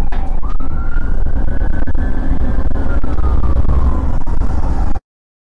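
Police car siren on a slow wail, rising to a held high pitch and falling away again, over the heavy low rumble of the patrol car driving at speed. It cuts off abruptly about five seconds in.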